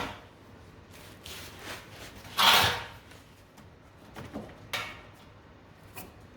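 Handling noises from working on the car's sheet-metal panels: a few scattered light knocks and clicks, with one louder scrape or slide about two and a half seconds in.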